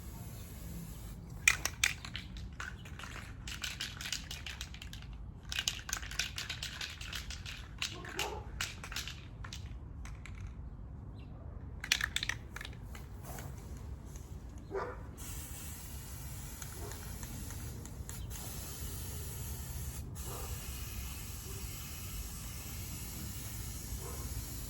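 Aerosol spray-paint can spraying in a run of short bursts and longer passes, then stopping about fifteen seconds in.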